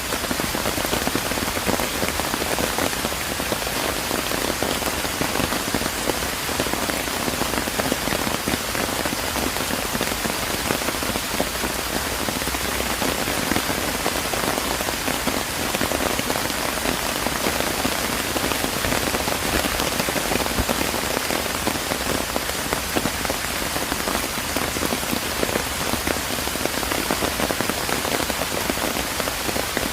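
Steady rain falling on surfaces, a dense even patter.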